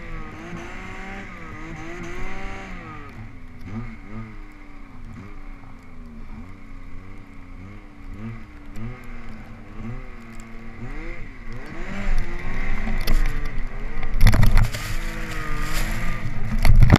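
Yamaha Nytro snowmobile's four-stroke three-cylinder engine running under constantly changing throttle in deep powder, its pitch rising and falling again and again. In the last few seconds it gets louder and rougher as snow sprays over the sled.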